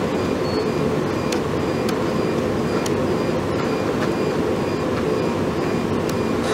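Steady mechanical whirring of a self-stirring BOD probe's stirrer motor running in the sample bottle while the dissolved oxygen reading settles, with faint irregular ticks over it.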